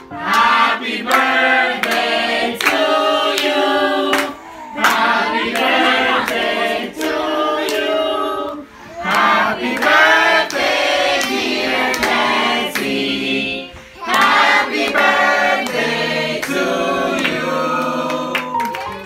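A group of children singing a birthday song together in phrases, with hand claps along the beat.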